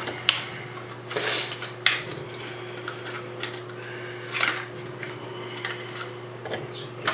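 Scattered clicks, light clatter and rustling of small hard objects being handled, sharpest about a third of a second in and just before two seconds, over a steady low hum.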